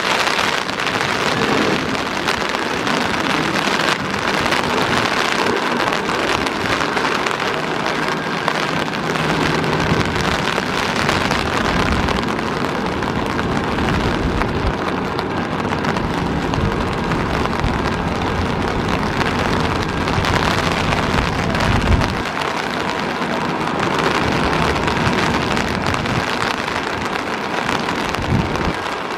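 Heavy rain falling hard, a dense, steady hiss. A low rumble comes and goes under it through the middle.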